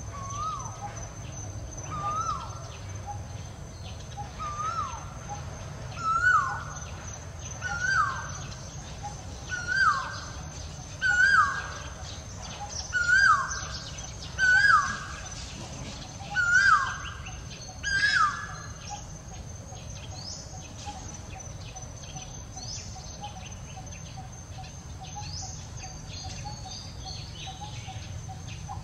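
A bird calling: a note that rises and then falls, repeated about every one and a half seconds, growing louder and a little higher over about a dozen calls, then stopping about 18 seconds in. A faint steady high-pitched whine lies underneath.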